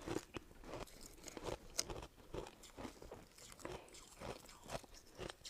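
Close-up crunching and chewing of soft ice, a run of irregular crisp crackles with one sharp crack a little under two seconds in.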